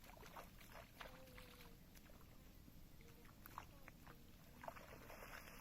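Near silence: faint outdoor background with a few soft clicks and a brief rustle of noise near the end.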